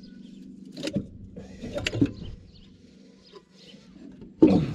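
Metal tools and bolts clinking and knocking on an excavator's diesel engine during a cylinder-head teardown, a few separate knocks with a louder one near the end, over a faint steady hum.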